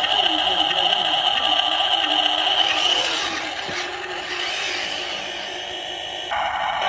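Radio-controlled toy dump truck driving past, its electric drive motor and gearbox giving a steady whine that is loudest over the first three seconds as it passes close, then fades as it drives away.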